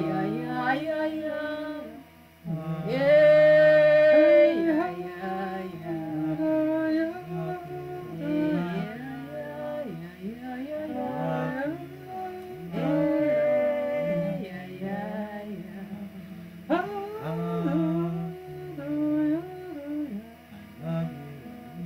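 Several voices chanting together in a wordless, improvised 'soul language' song. Their held notes slide between pitches and overlap, with brief pauses for breath.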